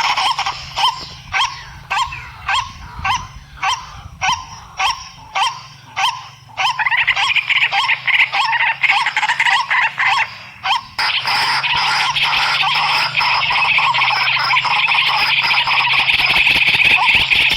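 Animal calls: short sharp calls repeated at an even pace, roughly one and a half a second, giving way about seven seconds in to a dense, continuous chorus of overlapping calls.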